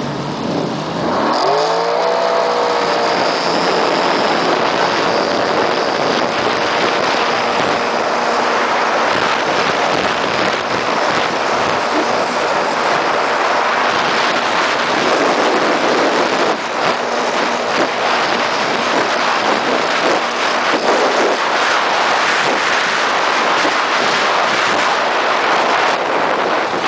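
Sea-Doo GTI SE 155 jet ski's three-cylinder four-stroke Rotax engine revving up from near idle about a second in, its pitch rising, then running steadily at speed under a constant rush of wind and water noise.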